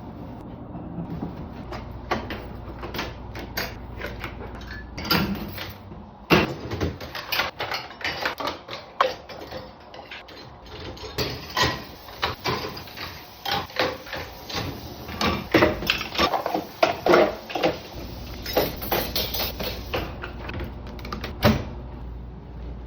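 Household objects being handled and put away during cleaning: irregular knocks, clacks and bumps, with cupboard or door sounds, over a steady low hum.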